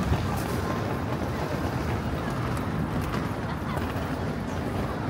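Busy city street ambience: a steady wash of traffic and crowd noise, with a few faint clicks.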